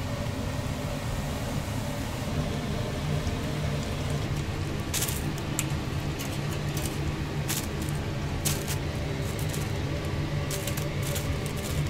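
Snack-shop kitchen ambience: a steady low machine hum, with sharp clicks and clinks of utensils or dishes coming at irregular intervals from about five seconds in.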